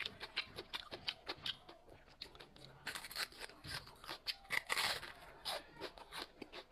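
Close-miked eating sounds: quick, irregular crunching and smacking of food being chewed, with a couple of longer noisy stretches around the middle.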